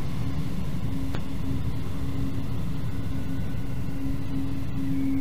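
Motorcycle engine running at low speed as the bike rolls along, a steady low rumble with a constant hum over it.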